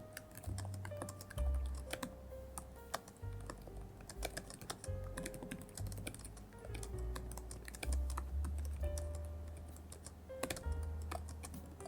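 Typing on a computer keyboard: a run of irregular clicking keystrokes, with background music playing under it.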